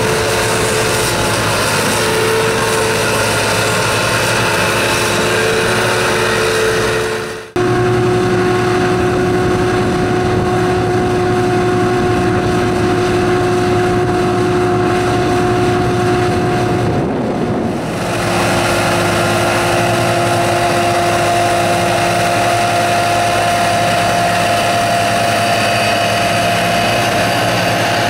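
275 hp Cummins diesel engine of an amphibious manure-lagoon agitation boat running steadily under load. The sound dips and cuts sharply about seven and a half seconds in, and shifts again about eighteen seconds in, each time to a slightly different engine note.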